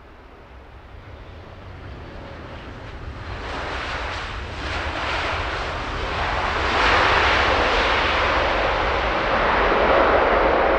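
Long-haul jet airliner arriving to land, its engine noise growing steadily louder for about seven seconds as it nears, then holding loud.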